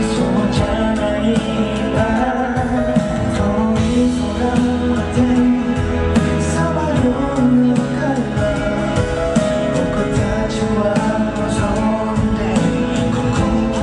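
Live pop song: a male singer singing into a handheld microphone over instrumental backing, steady throughout.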